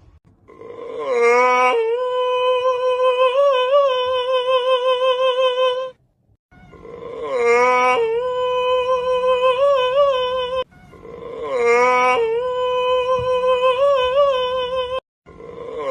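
A looped sound clip: one held, hum-like pitched note that slides into pitch and wavers slightly, repeated about every four to five seconds with abrupt cuts between the repeats.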